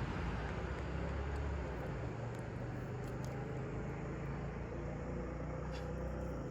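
Road traffic: a vehicle running on the road over the creek, a steady low hum under an even hiss.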